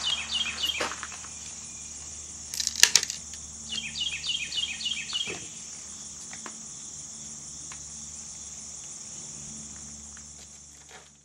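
A steady high drone of insects with a bird's runs of short, evenly spaced chirps. About three seconds in comes a quick cluster of sharp metallic clicks: the Smith & Wesson M&P 15-22's action being worked by hand to clear a spent .22 case that failed to eject.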